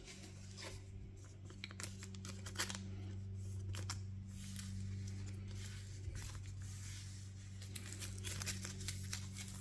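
Magic: The Gathering trading cards handled and sorted by hand: a run of quick slides, taps and crinkly rustles of card stock and plastic sleeves, over a steady low hum.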